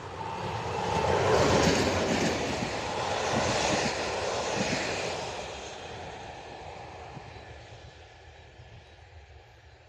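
A ČD class 749 diesel locomotive passing at speed with passenger coaches. The engine is loudest about one to two seconds in, then the coaches' wheels knock on the track until about five seconds in, and the sound fades away.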